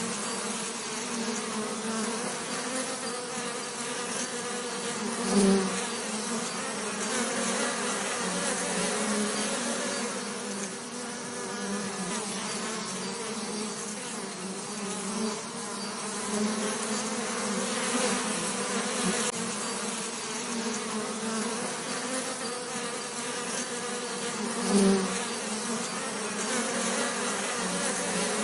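Bees buzzing in a steady, wavering drone, swelling louder twice as a bee passes close, about five seconds in and near the end.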